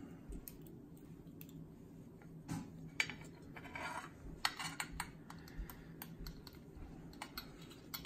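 Faint, scattered clicks and light taps of a metal XLR connector being handled against a ceramic plate, with short crinkles of masking tape being pressed and pulled around it.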